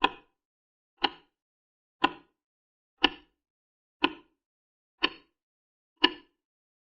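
A short, sharp click repeating evenly once a second, seven times, each dying away quickly.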